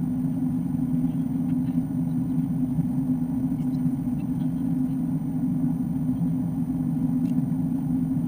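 Steady low drone of an Airbus A330-200's cabin in flight, the jet engines and the rush of air over the fuselage heard from a window seat by the wing. A few faint ticks sit on top of it.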